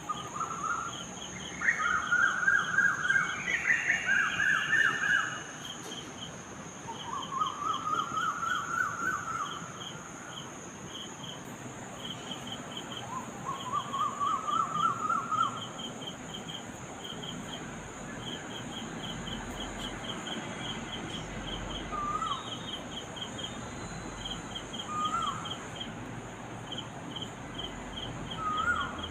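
Several birds calling at dawn. One repeats a few series of notes that climb in pitch, later giving only short upslurred calls. Another keeps up quick groups of high chirps, over a faint steady high whine.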